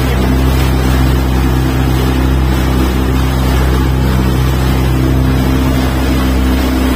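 A motorboat's engine running steadily at cruising speed, a constant low drone, with a steady rush of water along the hull.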